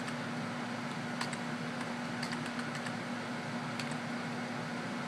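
A few scattered computer keyboard key presses, short sharp clicks, over a steady fan-like hum.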